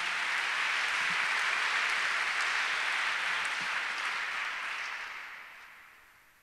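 Audience applauding after a sung verse ends, the clapping dying away about five to six seconds in.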